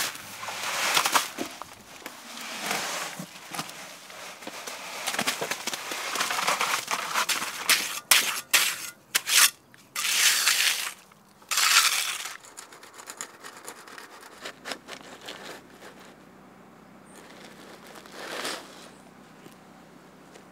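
Wet concrete sloshing out of a bucket onto steel mesh and plastic sheeting, and a steel trowel scraping and spreading it, in irregular strokes. The scraping is busiest in the first half and fainter later.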